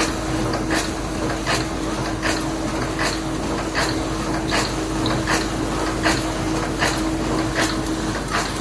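Five-station cold forging machine running in production, its ram striking in an even rhythm of about four strokes every three seconds over a steady mechanical running noise and a constant hum.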